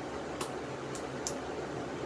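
Steady hum of a room fan, with three short, light clicks from fingers picking at a tape-sealed package.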